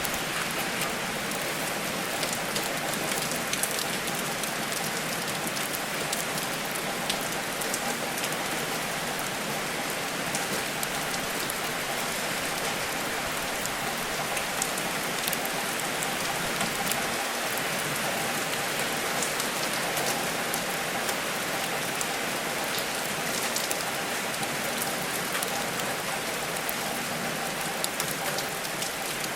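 Steady rain falling, an even hiss scattered with many small sharp ticks.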